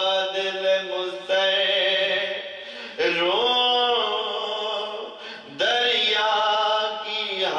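Solo male voice reciting an Urdu noha, a mourning lament chanted in long held phrases without instruments. A new phrase starts about a second in, another at three seconds and another near six seconds.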